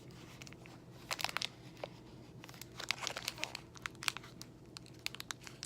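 Granola bar wrapper crinkling in scattered short crackles as the package is handled and turned over.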